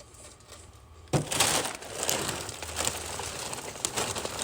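Dry Cheerios cereal being handled and poured, a crinkling, rustling noise with small clicks that starts suddenly about a second in.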